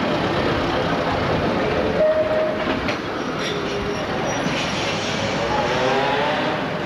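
Vintage wooden electric tram running on street track, a steady rattling rumble from wheels and body, with a few brief squealing tones as it takes a curve.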